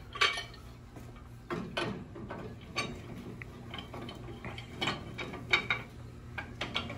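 Aluminum pipe wrenches clicking and knocking against the brass union and fittings of a backflow preventer as a second wrench is set on to hold back: a scattered series of short metallic clicks and knocks.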